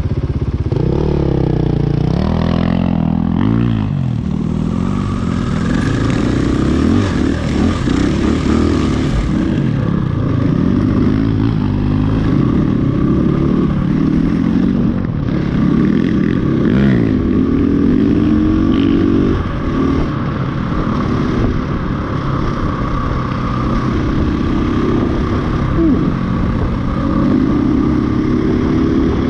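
KTM 500 EXC-F's single-cylinder four-stroke engine, heard up close from the bike itself while riding, its pitch rising and falling again and again as the throttle is opened and closed through the gears. About five seconds in, wind rushes over the microphone for a few seconds.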